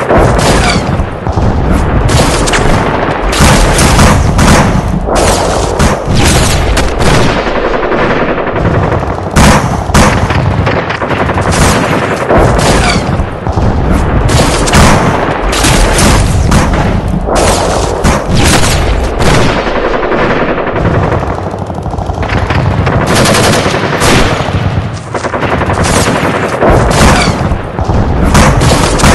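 Battle gunfire: dense, overlapping volleys of rifle and machine-gun shots, nearly continuous, easing briefly about twenty seconds in.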